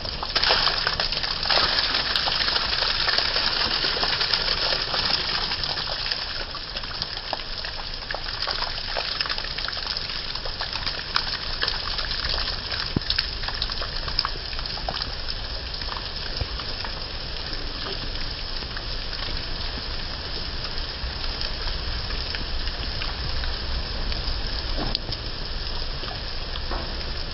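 Heavy rain pouring down and splashing on wet ground and puddles: a steady hiss of water with many small drop ticks, a little louder in the first few seconds.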